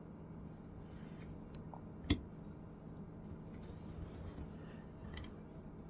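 Small tools working on a phone during disassembly: faint scraping and handling noises, with one sharp click about two seconds in, over a low steady hum.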